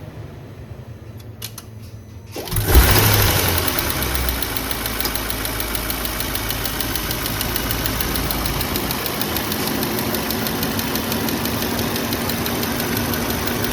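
Audi A8 D5 engine starting about two and a half seconds in, flaring briefly, then idling with a fast, even ticking knock from the cylinder head: the sign of a broken valve rocker arm that has scored its camshaft.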